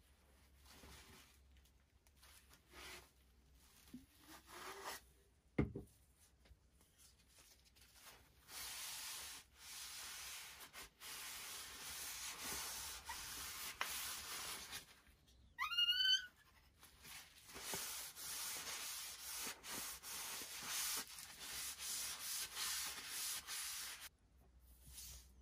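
Folded paper towel rubbing boiled linseed oil into a wooden pump handle: a scrubbing hiss in long strokes with short pauses between them. A knock about five seconds in and a brief rising squeak about sixteen seconds in.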